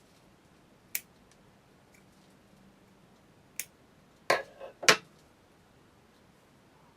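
Sharp clicks and knocks of small hard objects handled on a workbench while a scale model engine's distributor is being wired: one click about a second in, another after three and a half seconds, then a louder cluster of knocks near the end.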